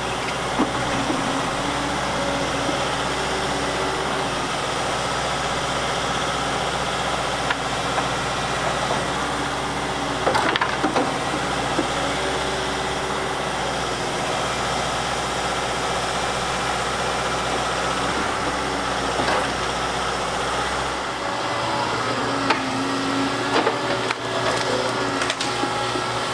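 Volvo tracked excavator's diesel engine running steadily while working, with a few sharp knocks and clatters over it. About 21 seconds in, the deep low hum drops away and the engine note changes.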